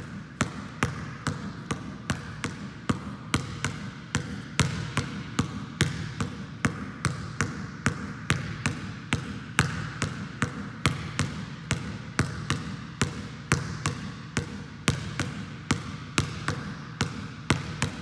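A basketball dribbled on a gym floor in a pound-crossover drill: a hard pound dribble, then two quick crossovers, repeating in a steady rhythm of about three bounces a second.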